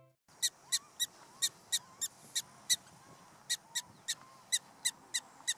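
Black-tailed prairie dog giving a string of short, sharp, high-pitched barks, about three a second with a brief pause a little past the middle: the repeated call a prairie dog gives as an alarm.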